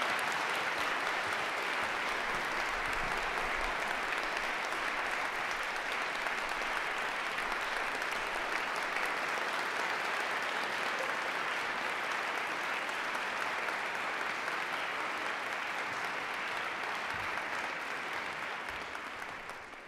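Concert-hall audience applauding steadily after a choral piece, easing off near the end.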